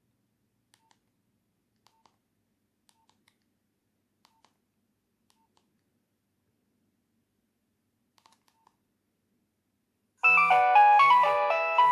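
Nokia 3120 mobile phone: faint key clicks with short beeps about once a second as its menu is scrolled, then about ten seconds in a loud polyphonic ringtone melody starts suddenly, with a repeating low note under it.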